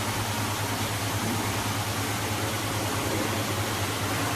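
Machinery running: a steady low hum under an even hiss, unchanging throughout.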